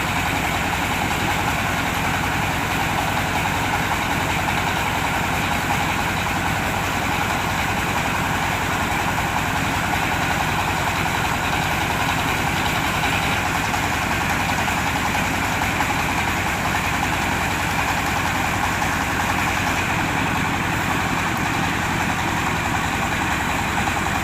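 Diesel engine of a mobile rice-milling machine running steadily at a constant speed.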